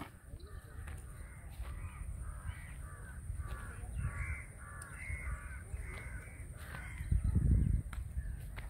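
Crows cawing over and over, many short calls overlapping at about two a second. A low rumble swells about seven seconds in.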